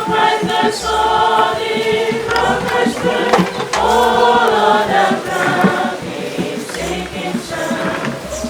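Choir singing.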